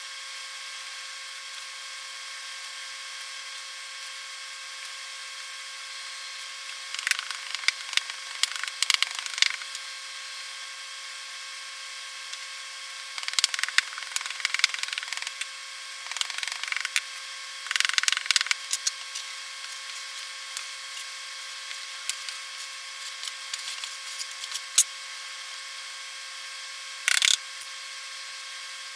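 Intermittent bursts of scraping and knocking as foundry molding sand is worked by hand in a mold flask, over a steady faint hum. The sand is too dry to hold together.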